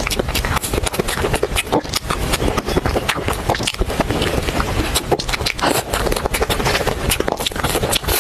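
Close-miked mouth sounds of eating soft cream cake: wet, sticky chewing and lip smacking with many small clicks, and a spoon scraping through the cake.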